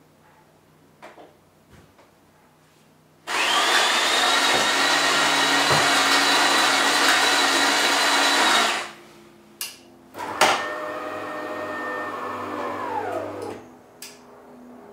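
DeLonghi Magnifica ESAM 4500 bean-to-cup coffee machine starting a coffee. After a few light clicks, its built-in coffee grinder runs steadily with a high whine for about five and a half seconds and cuts off abruptly. Two sharp clicks follow, then the brewing unit's motor runs more quietly for about three seconds, its pitch falling as it stops.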